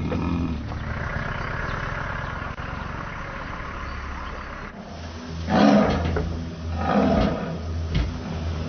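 Caged Asiatic lion snarling: two loud, harsh snarls about a second and a half apart, starting about halfway through, then a shorter one. Before them there is a steady low hum.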